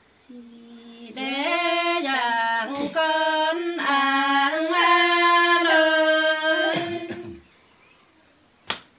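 A woman singing unaccompanied in Nùng call-and-response folk style (hát đối đáp): one voice holding long notes and sliding between pitches for about seven seconds. A single sharp click comes near the end.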